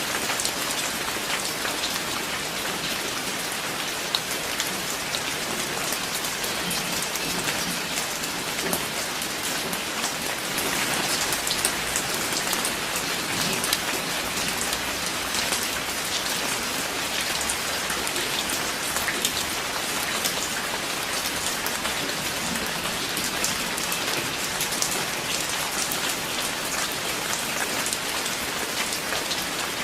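Steady rain falling, with many separate drops heard as fine clicks over an even hiss.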